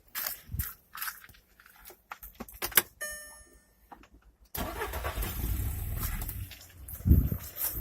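Clicks and key rattle, a brief tone, then the Skoda Octavia A5's 1.6 MPI petrol engine starts about four and a half seconds in and runs steadily. There is a loud low thump near the end.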